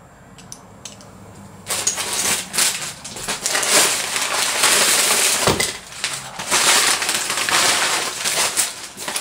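Crumpled brown packing paper and a clear plastic sheet crinkling and rustling as they are pulled aside. It starts a little under two seconds in and goes on in uneven handfuls to near the end.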